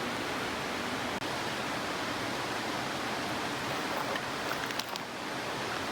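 Steady rushing of running water, an even hiss, with a few faint clicks about four to five seconds in.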